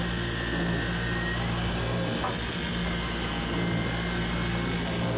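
Steady low drone of a large fishing boat's onboard machinery, humming evenly throughout.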